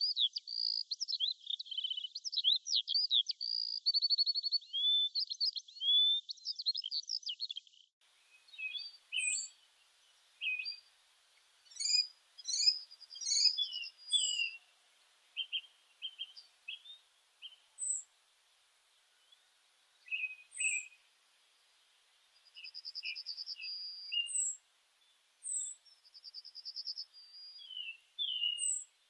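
Birdsong: small birds chirping and twittering, a dense run of quick chirps that stops about eight seconds in, then scattered separate chirps with a few short trills.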